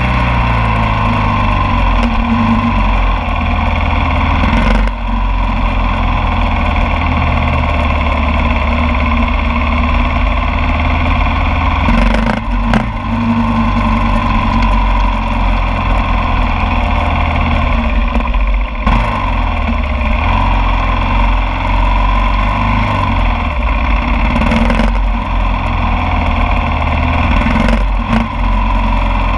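Kawasaki KLR 650's single-cylinder engine running loud through a GPR aftermarket exhaust with a short dB killer while riding at city speed. The engine note rises and falls, with a few brief dips along the way.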